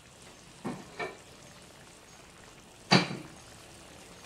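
Jackfruit curry simmering in a wok, a faint, steady bubbling hiss. There are two light knocks about two-thirds of a second and a second in, then a loud, sharp clack near three seconds in.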